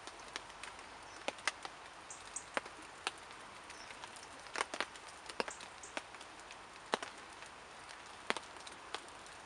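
Newly lit birch-wood campfire just catching on its birch bark tinder, crackling with irregular sharp snaps, about one or two a second.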